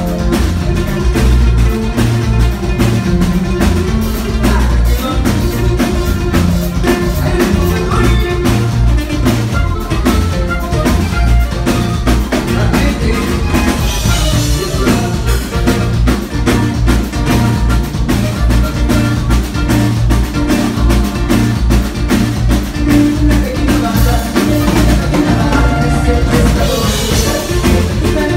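Live band playing a huapango, with a steady drum beat and a strong bass line.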